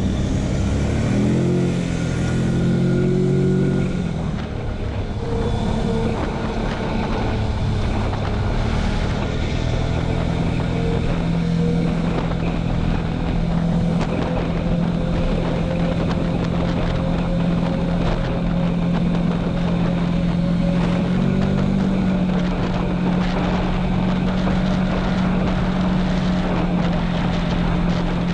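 Quad bike (ATV) engine pulling away with its pitch climbing over the first few seconds, then holding a steady cruising note at road speed, rising briefly once about three-quarters of the way through. Wind rushes over the microphone throughout.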